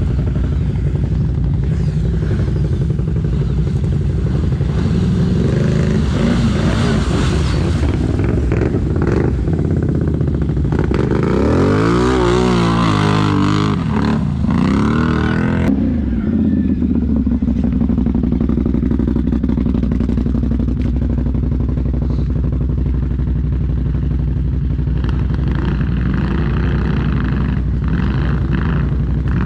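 Off-road ATV engines running steadily, with a spell of revving up and down for several seconds around the middle.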